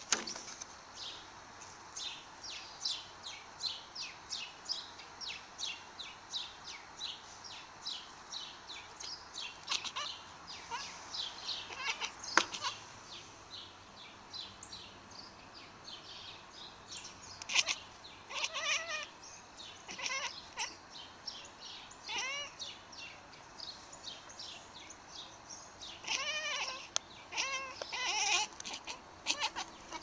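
Domestic cat chattering at birds: rapid runs of short, high chirps and clicks, with a few longer bleating chirps in the second half. A single sharp tap is heard about twelve seconds in.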